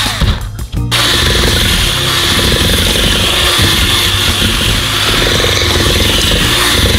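Black+Decker 8V lithium-ion cordless drill running a mixer beater through stiff cookie dough. It starts and stops in short bursts, then runs steadily from about a second in.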